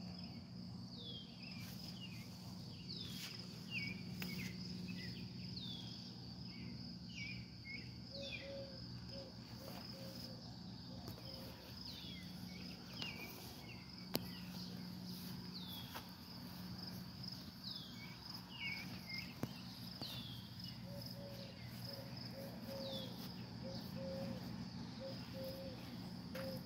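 Outdoor ambience: a steady high-pitched insect trill, with short bird calls that slide downward repeating every second or two and a low steady hum underneath. A run of short, lower notes comes about eight seconds in and again near the end, with an occasional faint click.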